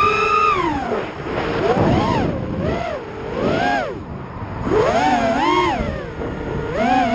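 Loki Storm racing quadcopter's motors and propellers whining in flight, the pitch sweeping up and down in a series of swoops as the throttle is worked, heard from on board the drone.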